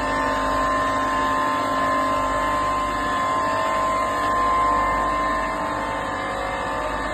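VE350 glass-processing machine running, a steady mechanical hum and whine from its motors.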